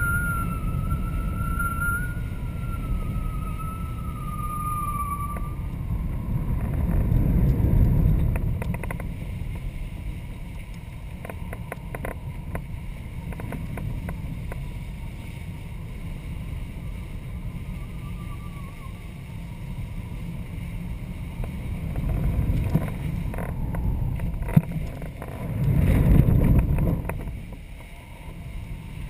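Wind rushing over a camera mounted on a flying kite: a steady low rumble that swells louder about a quarter of the way in and again near the end. A faint thin whistle falls slowly in pitch over the first few seconds.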